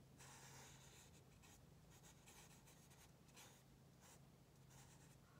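Black felt-tip marker drawn over paper in faint, irregular short strokes, colouring in a figure's hair.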